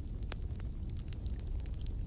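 Wood fire burning in a fireplace, heard close up: a low, steady rumble of the flames with scattered crackling pops, the sharpest about a third of a second in.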